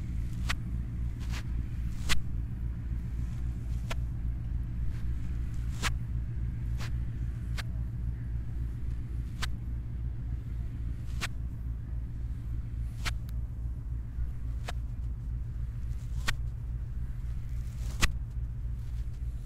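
Steady low wind rumble buffeting the microphone. Over it come sharp taps, about one every second or two, the loudest about two seconds in and near the end.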